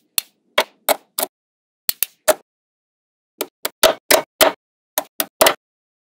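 Small magnetic metal balls snapping together one after another as they are placed, making sharp clicks: a loose run, a pause of about a second, then a quicker run of clicks.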